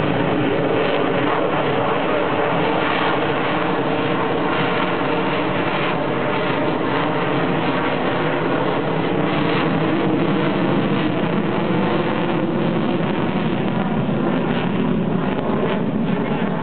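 Jet aircraft engine noise, loud and steady, with a faint steady tone inside it.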